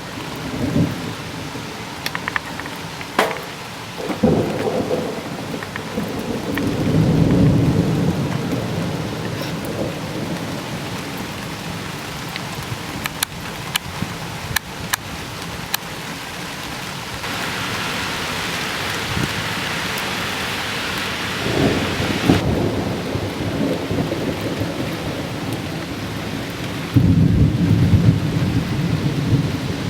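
Steady rain with sharp drip ticks, and thunder rumbling several times, the longest and loudest rolls about seven seconds in and near the end. The rain hiss grows heavier for a few seconds a little past the middle.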